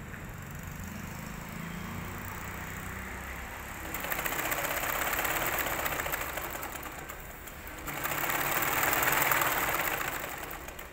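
Industrial sewing machine stitching heavy PVC tarpaulin in two runs, the first starting about four seconds in and the second, louder one about eight seconds in. A steady low hum comes before the first run.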